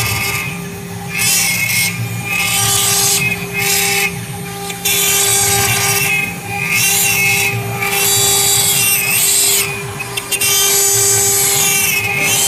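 Mini CNC router engraving wood: the spindle whines steadily while the cutting bit's rasp swells and drops every second or so as it works through the wood, with short rising and falling whines from the machine's moving axes.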